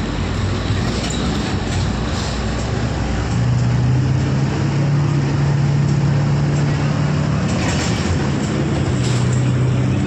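Bus engine and road noise heard from inside the moving bus. The engine hum rises in pitch and gets louder about three seconds in, then drops lower near the end.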